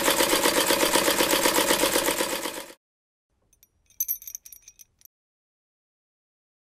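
Sewing machine running at speed in a fast, even rhythm of stitches, stopping abruptly about two and a half seconds in. About a second later come a few brief, bright metallic jingles of bangles clinking on a moving wrist.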